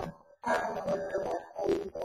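A woman's voice speaking, with a brief pause just after the start.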